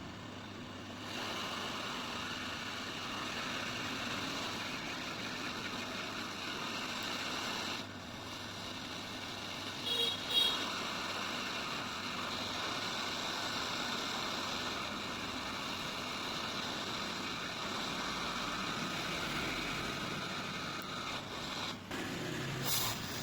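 Hot-air rework station blowing a steady hiss of hot air, heating a chip to reflow its solder. A couple of short clicks come about halfway through.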